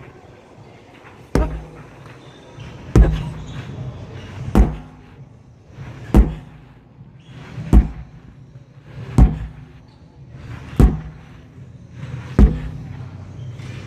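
Sledgehammer striking a large rubber tractor tyre: eight thuds, about one every one and a half seconds.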